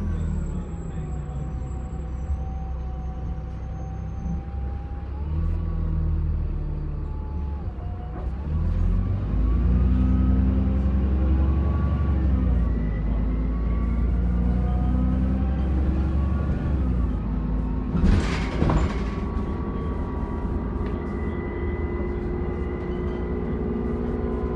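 Alexander Dennis Enviro400 Trident double-decker bus on the move: the diesel engine's rumble and the whine of its turbo rise and fall in pitch as it accelerates and eases off. A short hiss of air, typical of the air brakes, comes about two-thirds of the way through.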